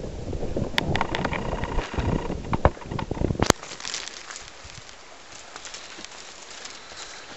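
Wind buffeting the microphone, which cuts off abruptly about three and a half seconds in. Scattered footsteps and scuffs on rough, rocky ground run throughout and are left alone after the cut-off.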